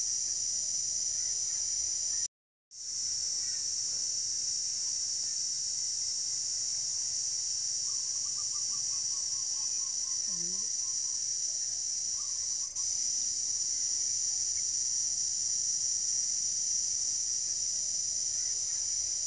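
A steady, high-pitched chorus of insects, with a faint run of quick chirps near the middle. It cuts out briefly about two seconds in and again at the very end.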